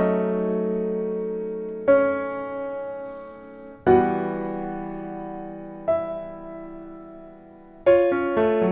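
Background piano music: slow chords struck about every two seconds, each left to ring and fade, then quicker notes near the end.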